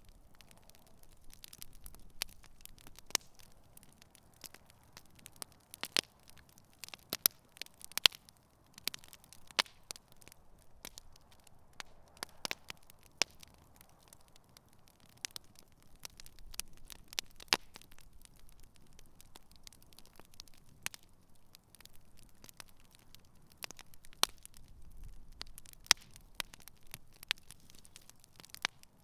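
Wood campfire burning, with frequent irregular sharp pops and crackles over a faint low hiss.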